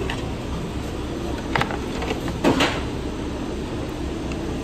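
Steady hum of fast-food kitchen equipment and ventilation, with two short clatters of pans and utensils at the sandwich station, the louder one about two and a half seconds in.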